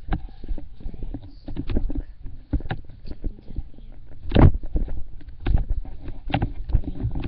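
Handling noise from a handheld phone being carried while its holder moves: irregular knocks and rubbing thumps on the microphone, the loudest about four and a half seconds in.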